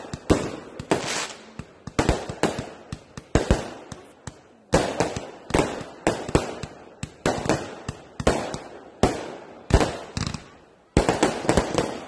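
Fireworks going off in quick succession: sharp bangs several times a second, each with a short echoing tail, mixed with crackling. There are brief lulls about four and a half seconds in and near the end.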